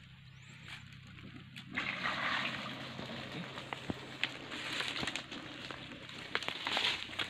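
Shallow water sloshing and splashing in a ditch, with sharp crackles from dry palm fronds, starting about two seconds in.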